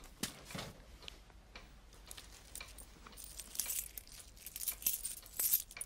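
Cloth rustling and crinkling as hands unwrap a bundle in a straw-lined wicker basket, with a few light clicks. The rustling grows denser about halfway through.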